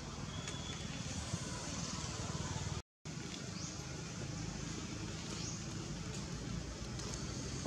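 Steady outdoor background noise with a low rumble, like distant road traffic, and a few faint high chirps. The sound cuts out for a moment about three seconds in.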